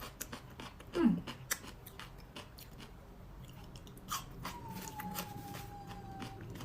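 Crisp bites and chewing of raw cucumber sticks dressed with soy sauce and wasabi: a run of sharp crunches, the loudest a bite about a second in. A thin tone slowly dropping in pitch runs for about two seconds from about four seconds in.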